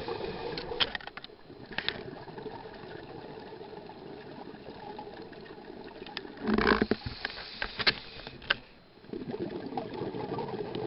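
Underwater sound of a scuba diver breathing through a regulator, with the rush of exhaled bubbles and scattered sharp clicks. A loud rush of bubbles comes a little past halfway through.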